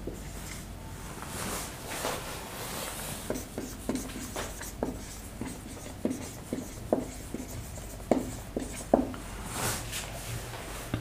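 Marker pen writing on a whiteboard: short, irregular squeaky strokes and taps as letters are written, stopping shortly before the end.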